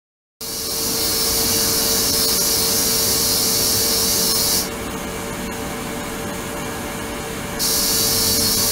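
Ultrasonic cleaning tank running: a loud high hiss over a steady hum. The sound starts abruptly. The hiss drops away about four seconds in and comes back some three seconds later.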